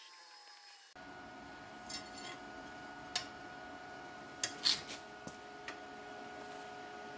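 A few light metallic clinks and taps as a steel flat bar is handled and set against the steel bracket of a foundry's lid-opening foot lever. They are scattered over a few seconds, the loudest in the middle, over a steady electrical hum.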